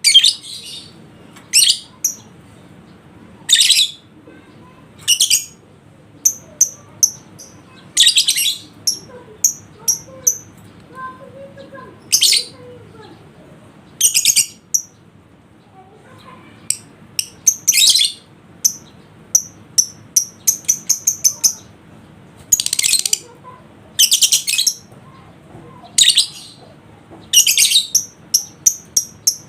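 Lovebirds calling: short, harsh, high chirps every second or two, with quick runs of sharp high chips in between, around twenty seconds in and again near the end.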